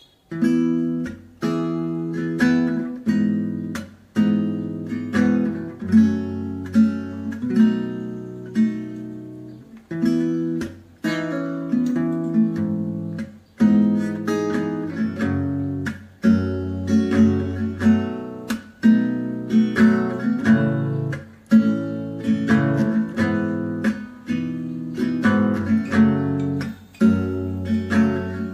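Background music: acoustic guitar strummed and picked in a steady rhythm, each chord ringing out and fading before the next.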